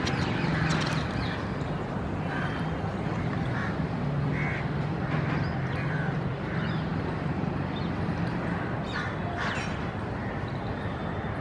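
Birds calling in short repeated calls over a steady low hum and a bed of outdoor background noise.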